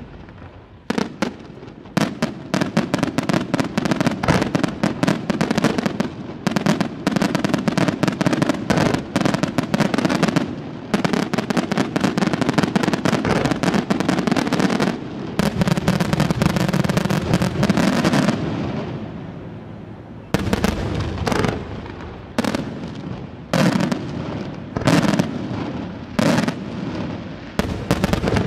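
Aerial firework shells bursting in a display: a dense, rapid barrage of bangs from about two seconds in until around eighteen seconds, then a short lull and a run of fewer, separate bangs.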